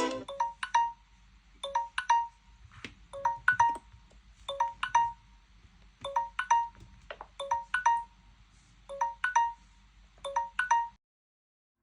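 Smartphone ringtone: a short phrase of bright, plinking notes repeated over and over, cutting off suddenly about eleven seconds in.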